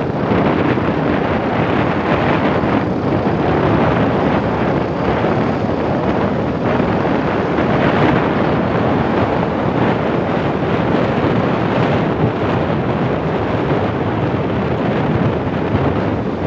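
Steady wind noise buffeting the microphone of a moving motorcycle, mixed with the motorcycle's running and road noise.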